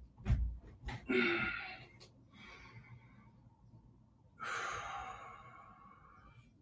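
A person breathing out audibly during a relaxation pause: a few short breaths and soft bumps early on, then one long sigh about four and a half seconds in that fades away.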